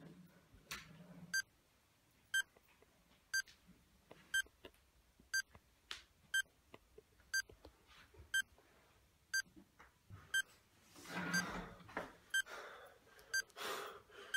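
Short electronic beeps, one about every second, each a single high pip, with some rustling of movement around two-thirds of the way through and near the end.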